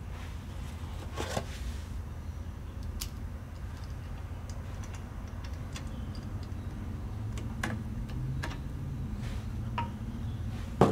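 Light metal clicks and taps from fitting a brake shoe hold-down spring, pin and washers on a Ford tractor's drum brake backing plate with a hold-down spring tool. They come scattered and irregular, with a few sharper clicks, over a low steady hum.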